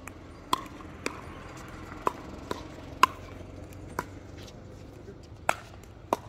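Pickleball rally: about eight sharp pops of paddles striking the hollow plastic ball, at uneven intervals, the loudest about three seconds in.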